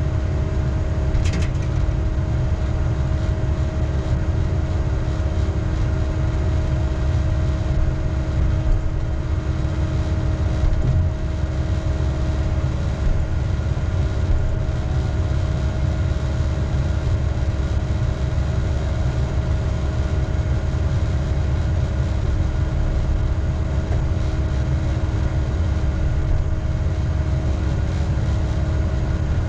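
Diesel engine of a knuckleboom log loader running steadily under a constant low drone, with a steady hum over it.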